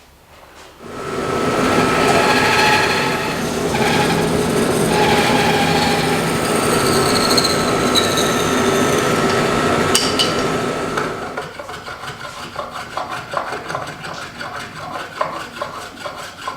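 Loud woodworking work on wood: a machine runs for about ten seconds, then gives way to quieter rhythmic rasping or rubbing strokes, a few a second.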